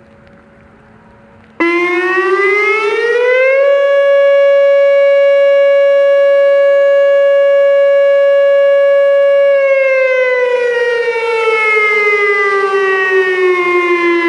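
Whelen WPS-2750 electronic outdoor warning siren sounding its short alert, loud: the tone starts abruptly about a second and a half in, rises in pitch, holds steady for about six seconds, then slowly falls.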